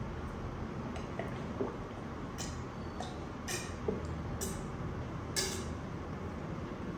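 A person drinking from a bottle in long pulls, with four gulps about a second apart over a faint steady hiss.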